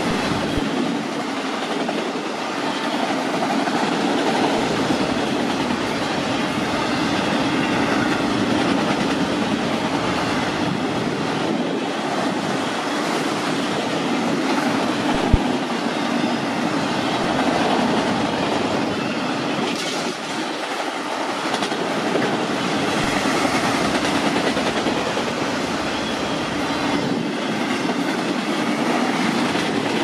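Autorack freight cars rolling past at speed: a steady noise and rattle of steel wheels on the rails. A single sharp knock comes about halfway through.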